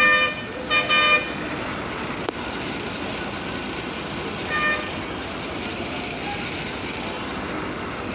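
Vehicle horns honking over steady traffic noise: a blast that ends just after the start, a short double toot about a second in, and a brief toot about four and a half seconds in.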